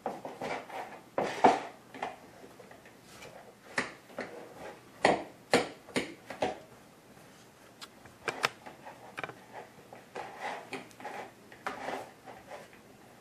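A fork scraping the strands out of the rind of a boiled spaghetti squash: irregular scrapes and sharp clicks, with short pauses between strokes.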